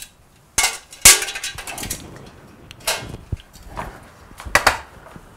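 Metal film reels and spools being handled in a projection booth: a series of sharp clanks and knocks, the loudest about a second in.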